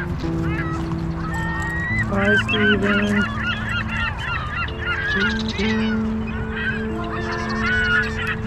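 A flock of geese honking, many short calls overlapping in two spells of clamour. Steady held low tones run underneath throughout.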